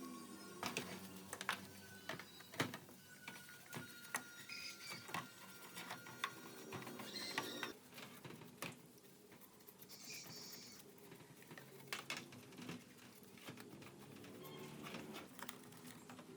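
Irregular light clicks and taps of hand work with small tools.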